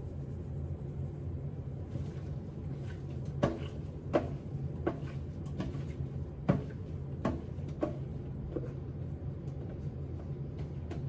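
A series of sharp taps and knocks, about one a second, from a glass spice jar of pepper being shaken out over raw steak, over a steady low hum.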